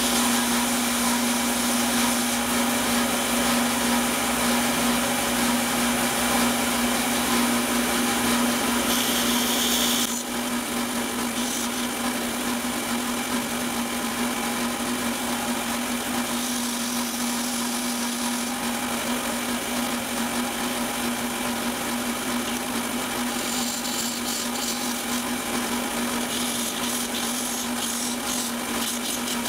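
Belt sander running with a steady motor hum while a carbon fiber landing-gear leg is ground against the belt to shape it. The sound drops a little about ten seconds in.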